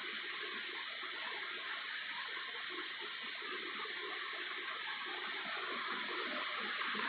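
Urbana ceiling fan running, a steady airy hiss of moving air.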